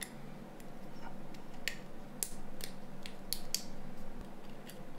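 A string of sharp little clicks from fingers pressing and fitting parts onto a mobile phone's circuit board, starting about a second and a half in.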